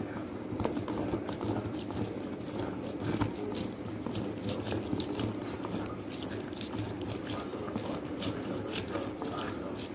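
Orange halves being twisted and pressed on a plastic manual citrus reamer: continuous wet squishing and scraping of the fruit against the ridged cone, with many small irregular clicks.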